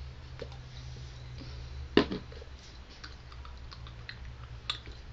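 A Ramune soda bottle being handled: a few light clicks and one sharp knock about two seconds in, over a steady low hum.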